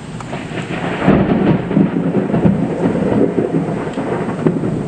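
Thunder from a nearby lightning strike, a loud rumble with crackling that swells about a second in and keeps rolling, over rain.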